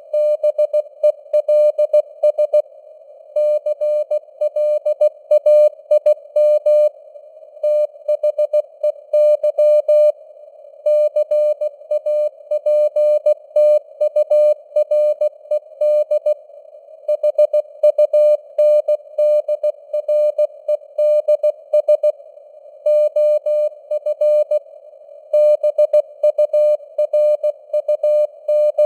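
Morse code sent at 16 words per minute: a single mid-pitched tone keyed on and off in dots and dashes, over a narrow band of simulated radio hiss, with the signal strength rising and falling (QSB fading).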